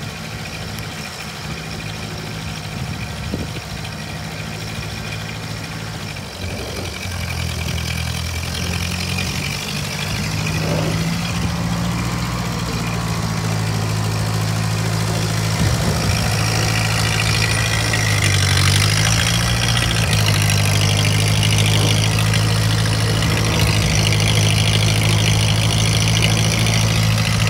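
Ford 8N tractor's four-cylinder gasoline engine running steadily at low throttle as the tractor drives, growing louder as it comes close.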